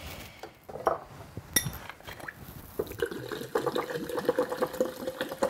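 A few clicks and knocks of glass being handled, then from about three seconds in water glugging rapidly as it is poured from a glass bottle into a glass jug.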